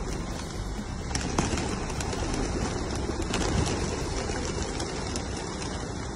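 Flock of feral pigeons cooing and flapping their wings as some take off and land.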